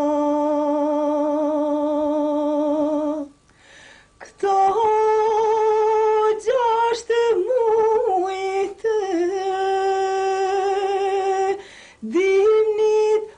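A woman singing alone in long, wavering held notes, Albanian folk style. She breaks off briefly about three seconds in, takes up a higher note, and pauses again shortly before the end.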